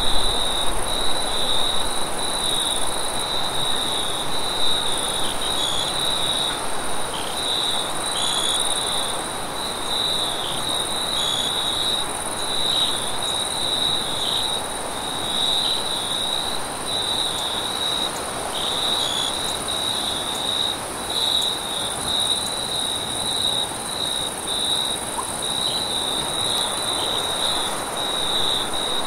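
Crickets chirping in a continuous, slightly pulsing chorus with a fainter, higher insect buzz above it, over a steady rush of wind.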